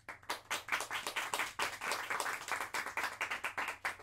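Audience applauding with individual claps distinct. It breaks out suddenly and thins out near the end.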